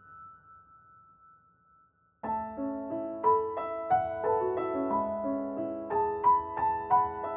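Background piano music. A high tone fades into near silence, then about two seconds in a piano melody of notes and chords begins abruptly.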